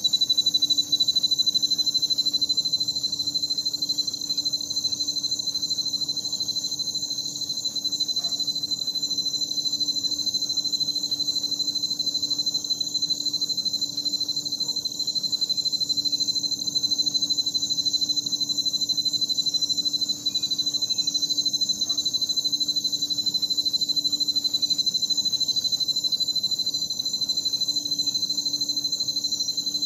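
Night insect and frog chorus: crickets trilling in a dense, unbroken high-pitched drone, over a steady low drone from frogs.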